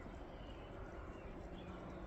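Steady outdoor ambience of a snowstorm: a low wind rumble with faint high chirps, and a low steady hum that comes in a little over halfway through.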